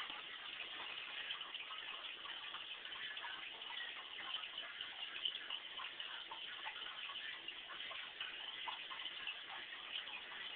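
Aquarium water bubbling and trickling: a steady fizz full of small, irregular ticks and crackles.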